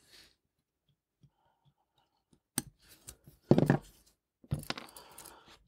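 Small metal watchmaker's tools clicking and scraping against a wristwatch movement during disassembly. A few sharp clicks start about two and a half seconds in, with the loudest handling noise about a second later and another cluster of clicks and scrapes near the end.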